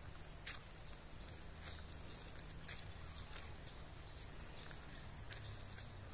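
Quiet jungle ambience: an animal's short, high-pitched call repeating about twice a second, starting about a second in, with a few faint clicks.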